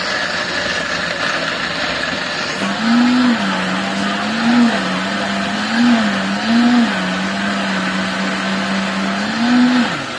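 Electric blender running while blending a fruit smoothie, its motor pitch rising briefly and settling back about five times.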